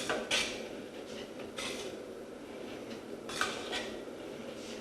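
Metal pots and utensils clinking and scraping in a few short clatters during cooking.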